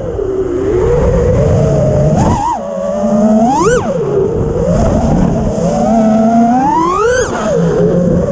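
FPV drone's electric motors and propellers whining, the pitch surging up and falling back with the throttle: quick climbs about two and a half and three and a half seconds in, then a longer climb that peaks about seven seconds in and drops away.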